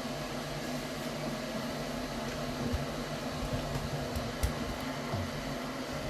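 Bosch Serie 6 front-loading washing machine running its wash, a steady hum with a few soft low knocks as the drum turns.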